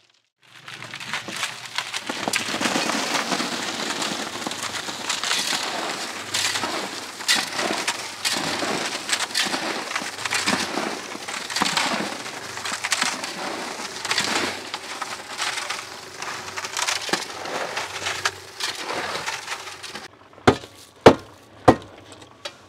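Small drum concrete mixer emptying a load of wet concrete: a continuous gritty scraping and sliding of concrete and gravel out of the turning drum, over a faint motor hum. The pour stops near the end, followed by three sharp knocks.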